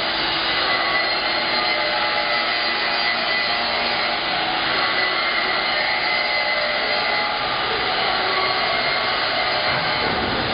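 CNC plasma torch cutting steel plate: a loud, steady hissing rush of the arc and gas jet, with a faint thin whine running through it.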